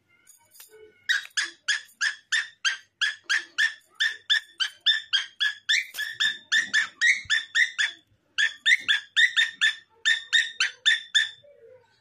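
Pet parrot giving a fast run of short, repeated calls, about four a second, with a brief break about eight seconds in.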